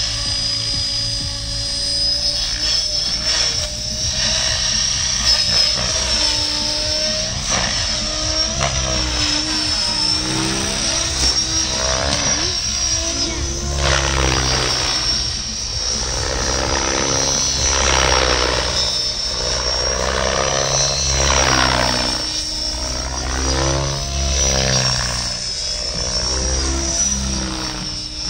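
Mikado Logo 700 electric RC helicopter in flight: a steady high-pitched whine runs over the rotor noise, which rises and falls in pitch and loudness every few seconds as the helicopter manoeuvres.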